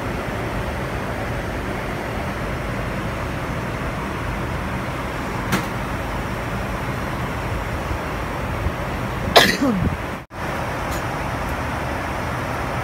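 Steady airliner cabin noise in flight, an even rush of engine and airflow. About nine seconds in a short, louder sound falls sharply in pitch, and just after it the sound cuts out for a moment.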